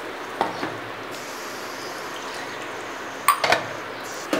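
Gravy simmering in an open stainless-steel pressure cooker: a steady hiss with soft bubbling. It is broken by a couple of short clicks about half a second in and a sharper pair of clicks near the end.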